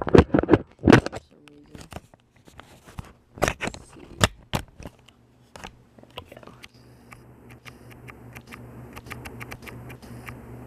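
A run of sharp clicks and knocks from the Encon Monarch ceiling fan and its light kit being handled, possibly including the pull-chain. From about six seconds in a steady low electrical hum sets in and grows slowly louder.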